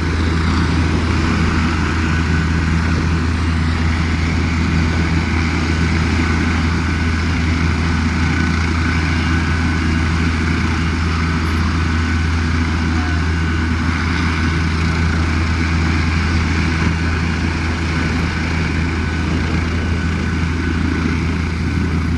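Helicopter running steadily, a constant low drone with a higher whine that holds the same pitch and level throughout.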